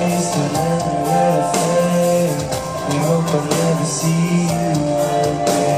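Live pop band music heard from the audience through a concert hall's PA, with a male voice singing over sustained instrument notes.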